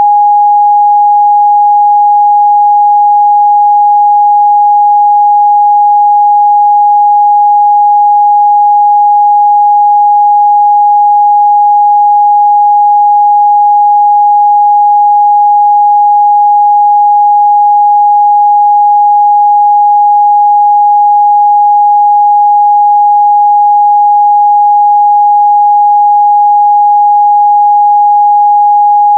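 A pure 826 Hz sine-wave test tone, held steady and loud at one pitch, used to check the midrange response of speakers and headphones.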